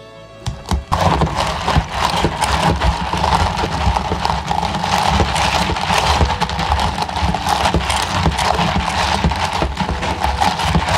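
Long bar spoon stirring ice in a tall plastic cup of sparkling drink: a fast, continuous rattle and clatter of ice cubes against each other and the cup wall, starting about half a second in.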